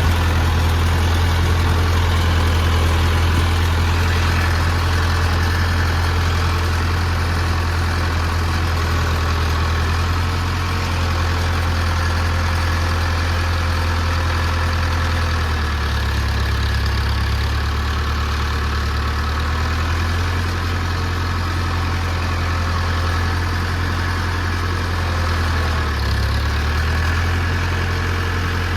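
Diesel tractor engine running steadily with a strong low hum, which shifts a little in pitch about halfway through.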